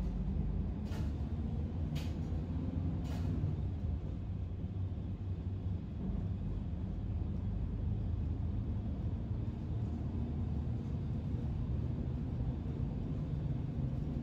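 Interior of a moving city bus: the steady low rumble of the engine and the ride. A few sharp clicks about a second apart in the first few seconds.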